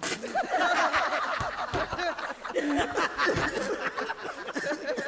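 A group of men laughing and chuckling together, many voices at once, breaking out suddenly at the start.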